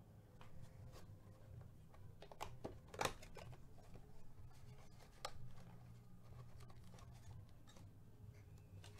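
Cardboard hobby box of trading cards being opened and handled with gloved hands: faint, scattered clicks and rustles of the card stock, the loudest about three seconds in and another just after five seconds.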